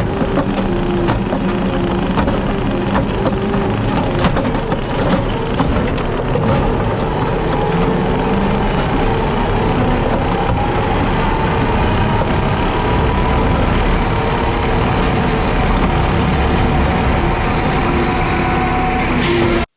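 JCB teleskid skid steer's diesel engine running steadily under load while driving a 7-foot Jenkins bush hog rotary mower, with a faint whine that slowly shifts in pitch. The sound stops abruptly at the very end.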